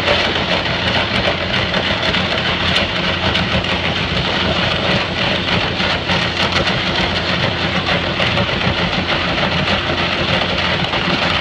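High-pressure waterjet of a hydrodemolition rig blasting concrete: a loud, steady hiss with constant crackle, over the steady hum of the engines that drive it.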